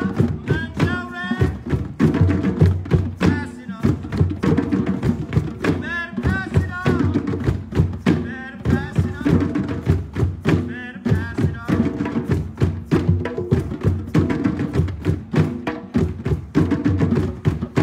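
Drum circle: many hand drums and other percussion played together in a dense, steady groove, with voices singing or calling over the drumming at times.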